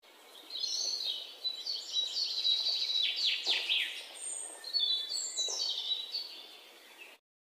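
European robin singing: a high, thin warbling song in two long phrases, with quick falling notes partway through. It cuts off suddenly near the end.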